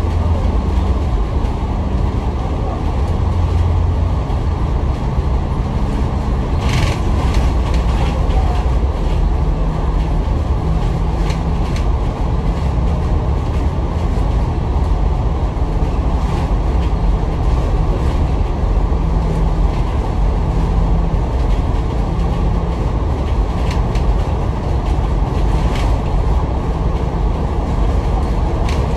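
Inside a city bus on the move: the engine running under a steady rumble and loud air-conditioning noise, with a few short rattles.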